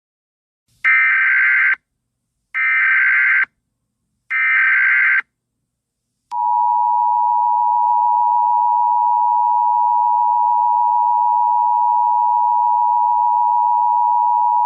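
Emergency Alert System header. Three bursts of SAME digital data tones, each a harsh warble about a second long with a short gap between them, are followed from about six seconds in by the steady two-tone EAS attention signal, held for about eight seconds. Together they mark the start of an emergency alert broadcast.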